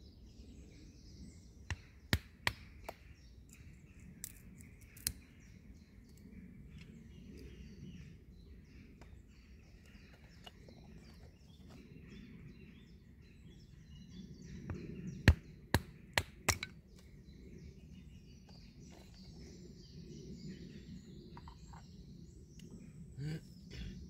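Woodland birds chirping faintly against a low outdoor background, broken by scattered sharp knocks and snaps: a few about two to five seconds in, and a louder cluster about fifteen seconds in.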